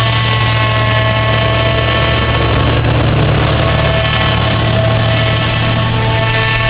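Claas Arion 640 tractor's engine running steadily as it drives slowly past close by, pulling two loaded silage trailers, with a self-propelled forage harvester running behind it. The engine note shifts slightly in pitch about halfway through.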